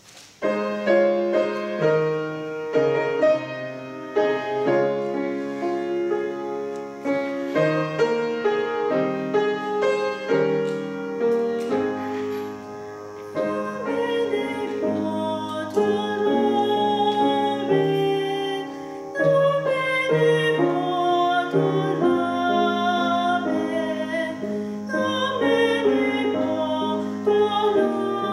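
Grand piano accompaniment opening a hymn with an introduction, and a woman's solo voice joins it about halfway through, singing in a trained style with vibrato.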